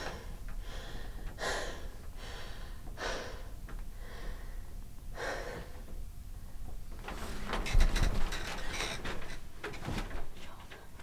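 A woman's frightened, heavy breathing with gasps, one breath every second or two. About seven seconds in, rustling and handling noises take over, with a dull thump soon after.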